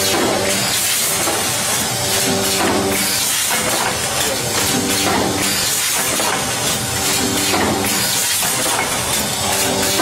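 Automatic rotary bag-given pouch packing machine running: a steady loud hiss with mechanical clatter, and a low hum that comes and goes every couple of seconds.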